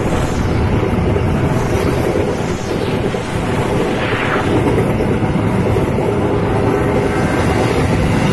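Indonesian express passenger train's coaches rushing past close by: a loud, steady rumble and rattle of steel wheels on the rails.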